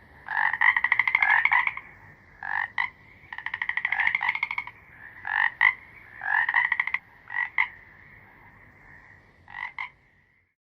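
A frog calling: short double croaks alternate with longer, rapidly pulsed rattling trills, repeated about ten times. A faint steady trill from other frogs runs underneath.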